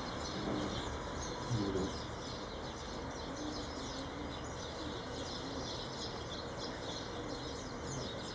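Small birds chirping again and again over a steady background hiss, with a few low calls about a second and a half in.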